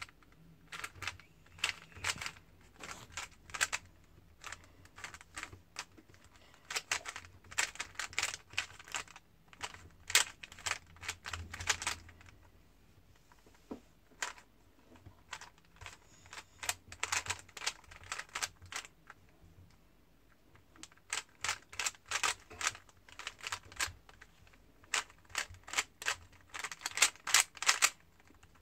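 Plastic 3×3 Rubik's cube being turned by hand: quick runs of sharp clicks and clacks as the layers rotate, broken by pauses of a second or two.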